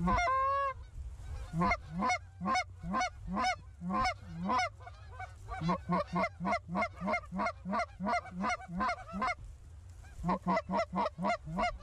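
Canada goose honking: one longer honk at the start, then a fast, even run of short honks and clucks, about three to four a second. They break off briefly about nine seconds in, then start again in a quick burst near the end.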